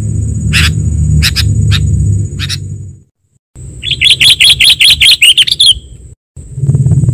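Recorded sooty-headed bulbul (kutilang) calls used as a bird-trapping lure: a few sharp, spaced chirps, a brief dropout, then a fast chattering run of about a dozen notes. Underneath are a steady low rumble and a thin, steady high whine.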